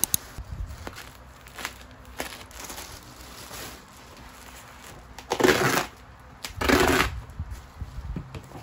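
Plastic parcel wrapping being handled and unwrapped: crinkling and rustling, with two louder stretches of crackling about five and a half and seven seconds in.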